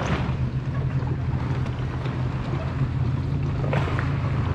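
A steady low mechanical hum, with a few faint clicks near the end.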